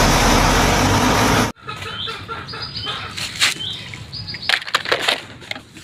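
A loud steady rushing noise that cuts off abruptly about a second and a half in. Birds then chirp with short high notes, among scattered light clicks and rustles.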